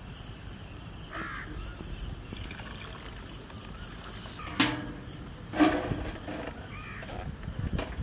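Metal ladle scooping boiled sweet corn out of a large aluminium pot of water, with water trickling back and two sharp metal knocks of the ladle on the pots about halfway through. Insects chirp steadily behind it, about four high chirps a second.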